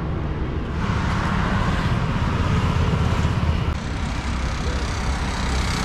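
Road traffic passing close by: a steady low rumble, with one vehicle's noise growing louder about a second in and fading away before the four-second mark.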